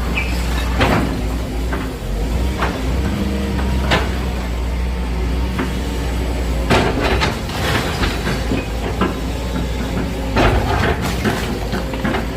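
Excavator's diesel engine running steadily under repeated knocks and crashes of debris as a house is demolished.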